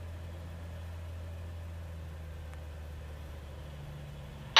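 Cessna 182R's six-cylinder piston engine and propeller at reduced power during touchdown and rollout: a faint, steady low drone that shifts slightly in tone near the end.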